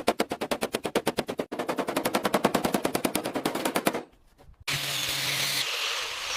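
A power tool hammering rapidly, about eleven blows a second, with a brief break partway through, stopping about four seconds in. After a short pause, a steady hissing run with a low hum starts near the end.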